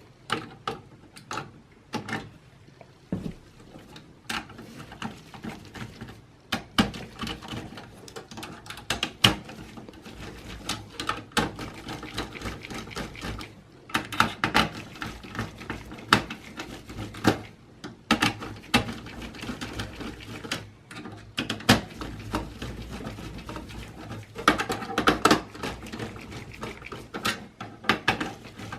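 Irregular clicks, taps and knocks of computer parts being handled and fitted by hand, with rustling between them.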